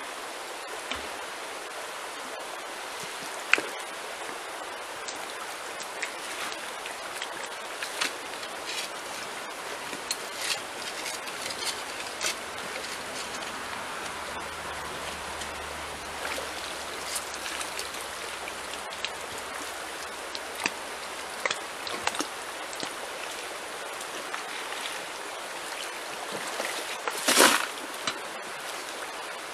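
Shallow river running steadily over stones, with scattered clicks and knocks of stones and a shovel working the gravel stream bed. Near the end comes a louder crunch as a shovelful of wet gravel is tipped into a plastic bucket.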